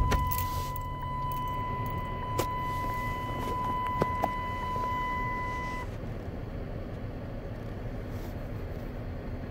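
Dodge Caravan minivan engine starting, loudest as it catches at the start, then idling steadily. A steady electronic warning tone from the instrument cluster sounds over the idle for about the first six seconds, then stops, with a few small clicks along the way.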